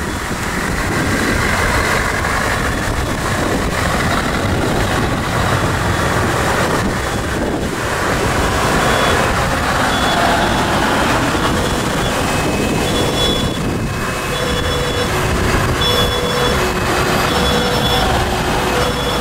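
A convoy of trucks, Scania tractor units among them, driving past with their diesel engines running. From about two-thirds of the way through, a fire engine's two-tone siren alternates steadily between a higher and a lower note.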